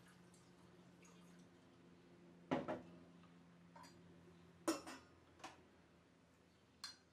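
Whiskey trickling through a metal funnel into a glass hydrometer test cylinder. The pour stops with a sharp clink of the glass jar being set down on the table. Three more glass clinks follow as the funnel is lifted out and the hydrometer is lowered into the cylinder.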